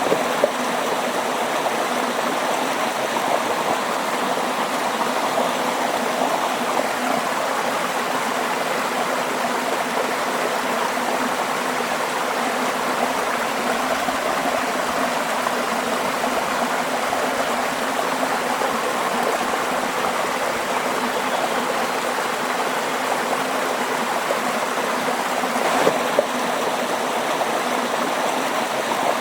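Stream water running steadily, a continuous even rush with gurgling.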